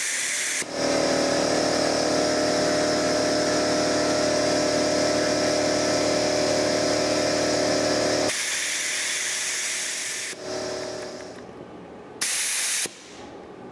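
Loud shop air compressor running with a steady, pitched hum, mixed with the hiss of compressed air rushing through the air-powered desoldering gun's vacuum as its trigger is pulled. The compressor drops out about eight seconds in, and the hiss carries on for a couple of seconds. A short, sudden burst of air hiss comes near the end.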